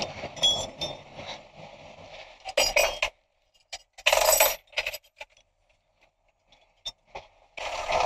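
Short bursts of metallic clinking and rattling, the loudest about four seconds in, with a few single clicks and near silence between them.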